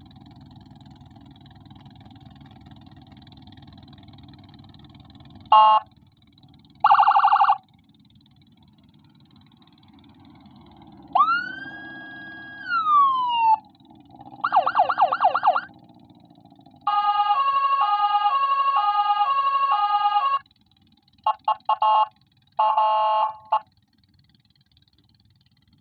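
Electronic siren tones played from a phone siren app through a Senken 60-watt siren module's AUX input. After a low hum, two short blasts, a wail that rises and then falls away, a fast warble, about three seconds of an alternating two-tone hi-lo pattern, and a few short chirps near the end.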